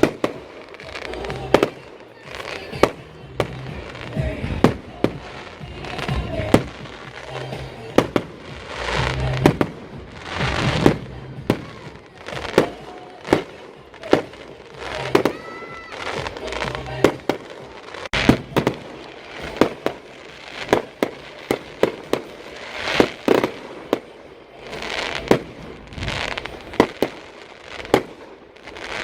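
Fireworks display: a rapid, irregular series of sharp bangs from aerial shells bursting, about one or two a second, with crackling and rumbling between them.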